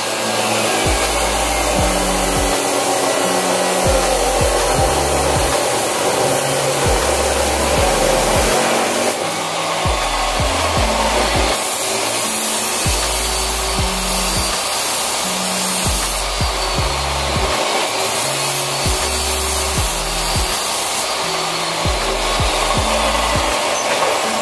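Abrasive chop saw's cut-off wheel grinding through steel rebar, a loud, steady grinding hiss.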